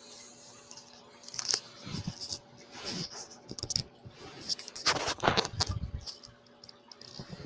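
Irregular crackling clicks and scratches of a Theraphosa stirmi tarantula crunching a mouse in its fangs. The crackles come in clusters, thickest about five seconds in, over a faint steady hum.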